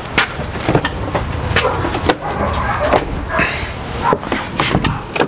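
Footsteps and irregular knocks and clicks as a person walks beside a semi truck and climbs up to its cab, over a steady outdoor rumble.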